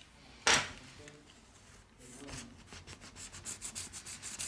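A sharp knock about half a second in. Then, from about two and a half seconds in, rapid scraping strokes, several a second, as a thin prying tool is rubbed along the seam of a Huawei P30's glass back cover.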